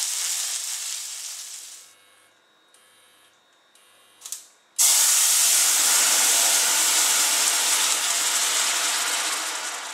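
Broth pouring through a mesh strainer into a pot, the splashing fading out within the first two seconds. After a short quiet spell and a brief hiss, there is a sudden loud sizzle about halfway through as broth hits a hot stainless saucepan to deglaze the browned bits. It settles into a steady bubbling hiss that slowly eases near the end.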